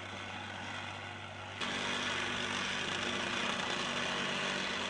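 Engine-driven vibrating plate compactor running over freshly laid paving stones with no sand in the joints: a steady engine drone with a rattling haze, which steps up louder and brighter about a second and a half in.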